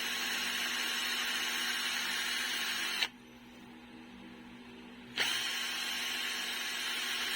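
Small handheld electric drill running with a steady high whine while it trims out a hole in a plastic kitchen-timer case. It switches off sharply about three seconds in and starts up again about two seconds later.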